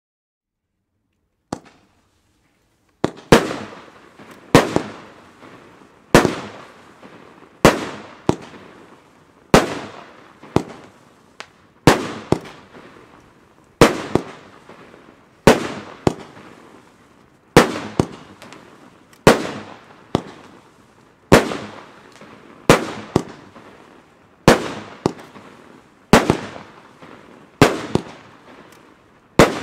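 A 25-shot, 30 mm fireworks battery (SRPyro Raging Red, red blinking willows) firing shot after shot. A sharp bang comes roughly once every one to two seconds, each one trailing off. The shots start about three seconds in, after a single small pop.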